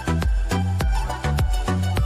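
Background music with a fast, steady beat and a stepping bass line.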